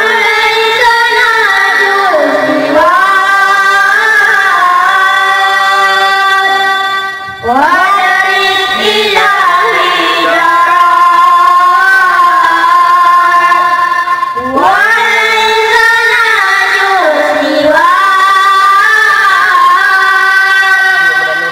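A boy singing an Islamic devotional song (sholawat) into a microphone, in long, ornamented phrases that each begin with a rising swoop. There are two short breaks, about 7 and 14 seconds in.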